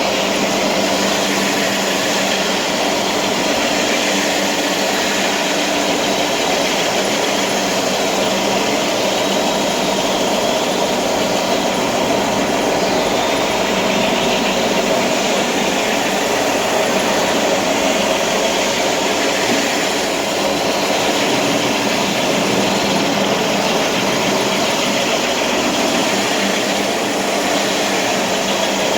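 A machine running steadily, with an unbroken mechanical drone and a constant hum.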